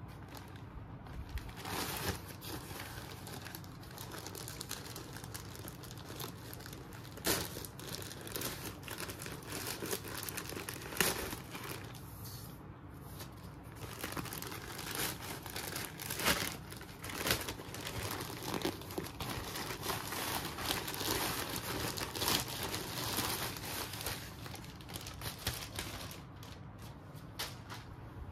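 A plastic poly mailer bag crinkling and tearing as it is ripped open by hand, with sharp rips and crackles every few seconds. The handling turns softer near the end.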